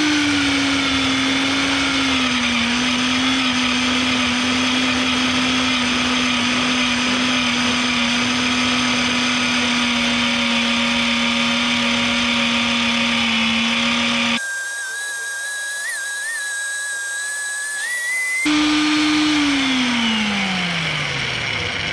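Vevor BRM-35 magnetic drill's motor running under load as an annular cutter bores through half-inch steel plate: a steady hum with a whine above it, settling slightly lower in pitch as the cutter bites. Partway through, the sound thins to a higher whine for a few seconds. Near the end the motor winds down, falling in pitch, after the cutter has broken through the first plate.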